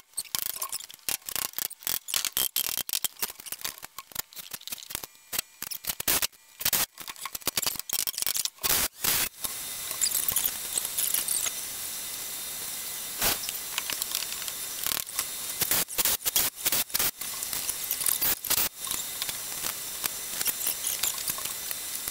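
Hammer knocking on wooden framing studs in quick, irregular blows as a stud is driven into place. The knocks thin out about halfway through into a steady hiss with occasional knocks.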